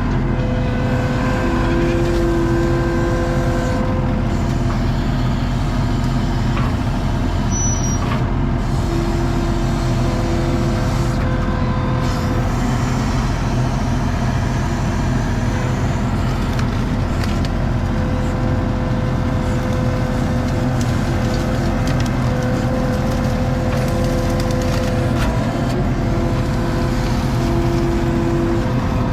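ASV RT-40 compact track loader's diesel engine running steadily under work, with a higher whine that rises in and drops out several times as it works.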